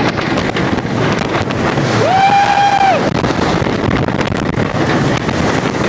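Wind rushing over the microphone of a rider on the Millennium Force steel roller coaster as the train speeds along, with a rider's high held scream about two seconds in, lasting about a second.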